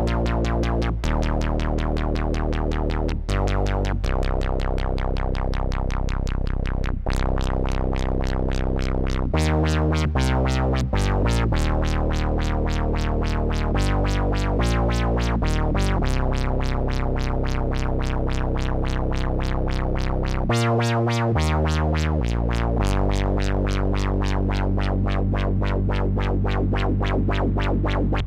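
Erica Synths Polivoks-style DIY modular synth playing a line of keyboard notes, each changing after roughly half a second to a second. A fast pulsing runs through the notes: a cycling envelope generator is running as an LFO, synced to the keyboard gate.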